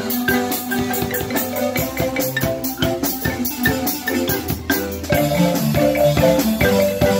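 A marimba ensemble playing a pop tune: several wooden-bar marimbas in interlocking mallet parts, over a drum kit whose cymbal and drum strikes keep a steady beat.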